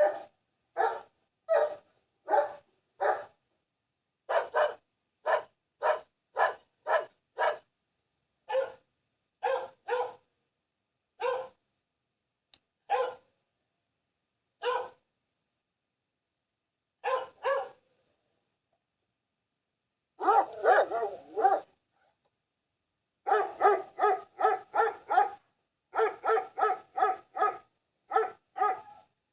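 A dog barking in short single barks, about two a second at first, then more widely spaced with a couple of pauses of a few seconds. After about twenty seconds it breaks into a fast run of barks, several a second, that carries on to the end.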